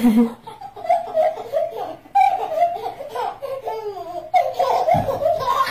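A baby laughing in repeated bursts of giggles.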